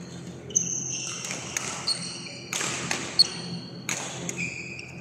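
Badminton rally in a large hall: several sharp racket hits on the shuttlecock and court shoes squeaking briefly and repeatedly on the floor.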